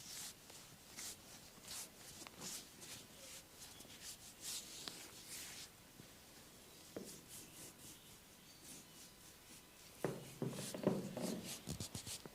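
Hands rubbing and stroking over skin in a massage, a string of short swishing strokes. About ten seconds in, the strokes get louder and quicker.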